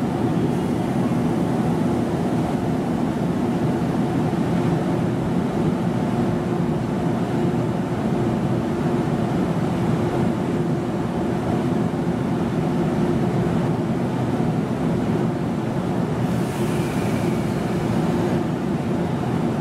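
JR Kyushu 787 series electric express train standing at the platform, its onboard equipment giving a steady low hum with a few held tones.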